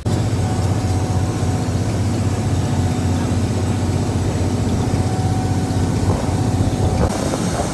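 A river boat's engine running steadily, a loud low drone.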